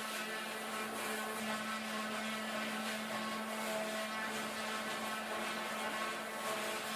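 A machine running steadily, a constant hum with a whine above it and no break or change in speed.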